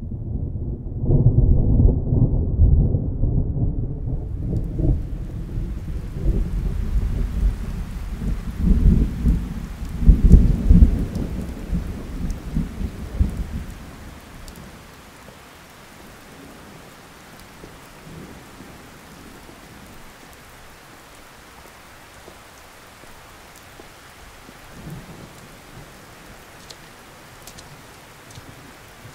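Thunderstorm: long rolling thunder that swells and rumbles through the first half, loudest about ten seconds in, then fades. Steady rain comes in a few seconds in and keeps falling alone after the thunder dies away.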